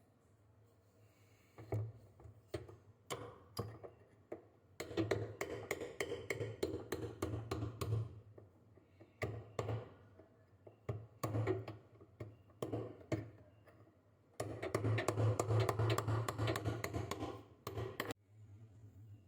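A run of taps and clicks, with two longer spells of dense rattling and scraping about five seconds in and again near the end, like parts being handled.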